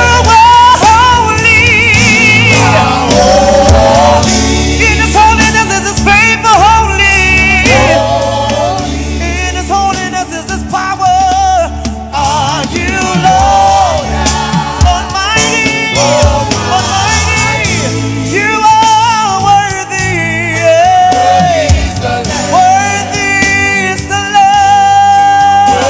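Gospel worship music: singing in long, wavering melodic lines over a band with a steady bass.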